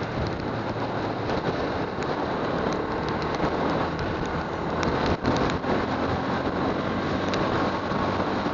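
Motorcycle engine running at road speed under a constant hiss of wind and rain noise on the onboard microphone.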